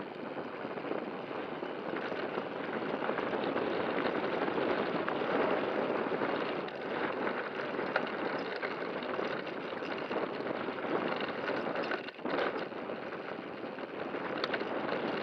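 2019 Scott E-Genius electric mountain bike rolling fast down a dirt trail: steady rolling noise of the tyres on dirt and gravel, with scattered knocks and rattles from the bike over bumps, picked up by a camera mounted on the bike. The noise drops briefly about twelve seconds in.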